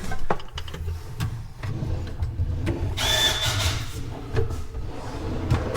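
Bathroom vanity drawer being worked by hand on its slides, with clicks, knocks and rubbing over a low rumble. About three seconds in there is a short hiss with a high steady tone.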